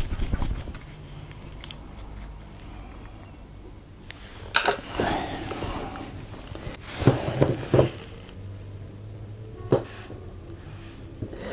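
Quiet handling sounds of a glue tube and applicator stick: quick rattling as the tube is shaken at the start, a sharp click about four and a half seconds in, then a few soft scrapes and taps as glue is spread along a PVC seam.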